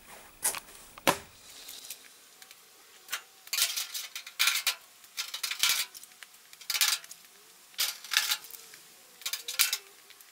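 Sharp metallic clicks and clinks in clusters as cleco sheet-metal fasteners are set into the edge holes of a new steel wheel-arch panel on a Porsche 356 body, some followed by a short faint ring from the thin panel. A couple of heavier knocks come about a second in.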